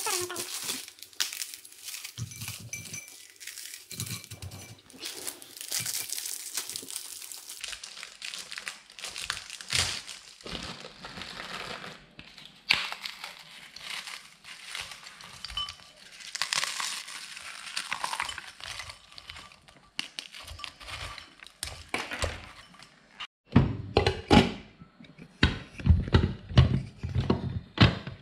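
Packaging crinkling and plain biscuits being crushed, with many small cracks and rustles. Near the end comes a run of heavy thumps.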